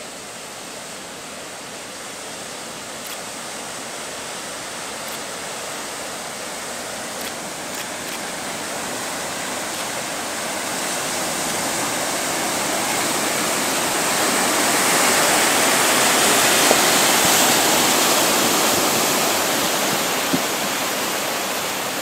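Dordogne River tidal bore approaching: a steady rushing of breaking water that grows gradually louder, peaks about three quarters of the way through, and eases a little near the end. The noise comes from turbulence and air bubbles in the bore's breaking roller and from its impacts on the river bank.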